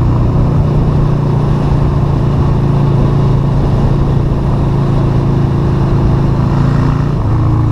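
Yamaha Virago 250's small V-twin engine running steadily while the motorcycle cruises, heard from the rider's seat. Its pitch drops a step near the end.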